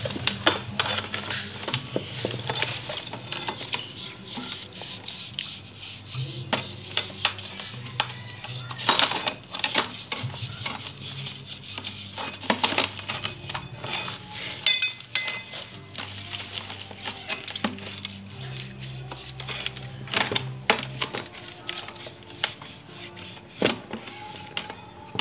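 Brass candlesticks and altar pieces clinking and knocking against each other and the plastic basin while being scrubbed with scouring pads in vinegar-and-salt water, with irregular sharp clinks throughout and one brief metallic ring about halfway through.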